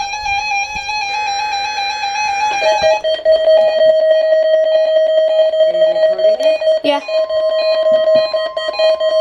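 Electronic music of buzzy synthesized notes: a higher note held with a slight trill, then about three seconds in a lower note that pulses steadily, with a brief sweep about seven seconds in.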